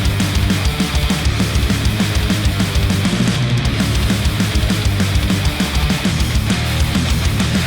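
Heavy rock music with fast, driving drums, played back through Sennheiser open-back headphones and picked up by microphones on the headphone.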